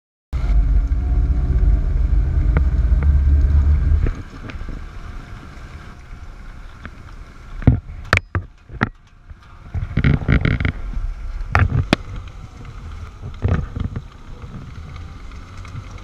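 Tucker Sno-Cat passing overhead: its engine and tracks make a loud, steady low rumble that drops away about four seconds in. After that comes a quieter hiss of wind with several sharp knocks and a short burst of scraping about ten seconds in.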